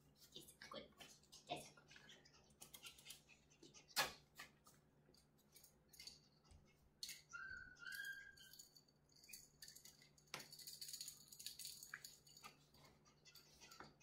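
Faint rustling and scratching of a puppy and a person's hands on a quilted whelping-pad liner, with scattered light clicks, a short high squeak about seven seconds in, and a stretch of hissy rubbing about ten seconds in.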